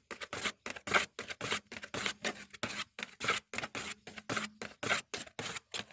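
Car body filler being mixed by hand, a spreader scraping and folding the putty across a mixing board in quick repeated strokes, about four a second.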